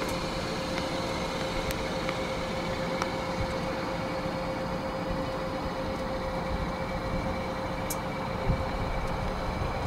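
Steady mechanical hum with a constant mid-pitched whine.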